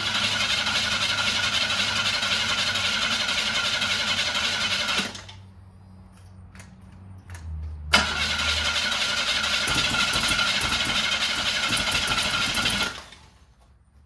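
Starter motor cranking the GM 2.8 V6 of a 1986 Jeep Comanche in two long tries of about five seconds each, with a steady starter whine, each cut off abruptly without the engine settling into running. The owner takes the way it cranks as a sign that the ignition timing needs to be advanced.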